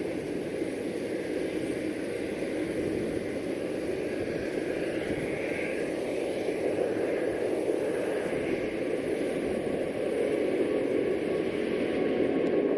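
Air France jet airliner's engines at takeoff thrust, a steady rushing noise that slowly grows louder.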